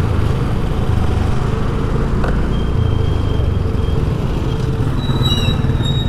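Street traffic: vehicle engines running with a steady low hum. A faint high tone about halfway through and a few short high-pitched tones near the end.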